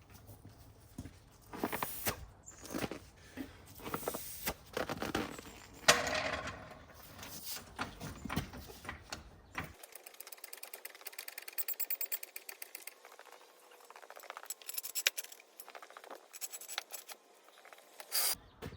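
Tools and parts being handled for an oil change, giving scattered clinks and knocks. About halfway through comes a long run of rapid, even clicking, and a sharp knock near the end.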